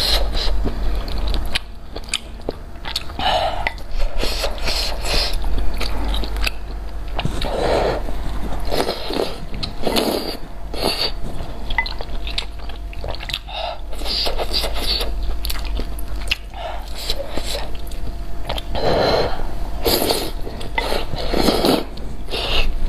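Close-miked eating of noodles and tripe in spicy broth: repeated wet slurps and chewing, over a steady low hum.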